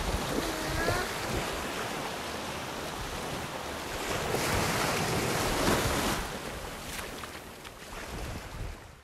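Surf washing on a shore, with wind rushing over the microphone, fading out at the end.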